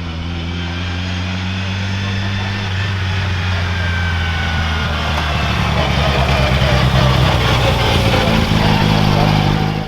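Hill-climb race car engine running with a steady low note, growing louder over several seconds, then cut off abruptly near the end.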